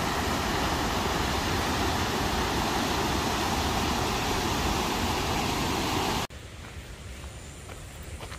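Rushing creek water, a steady full hiss, which cuts off abruptly about six seconds in. What follows is a much quieter trail ambience with faint footsteps on a dirt path.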